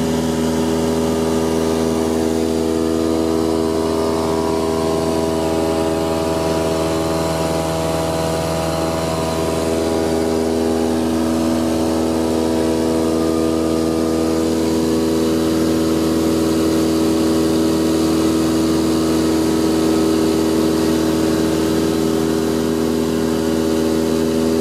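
Single-engine propeller plane's engine and propeller running steadily under climb power after takeoff, heard from inside the cabin as an even, many-toned drone. The note shifts slightly about nine seconds in.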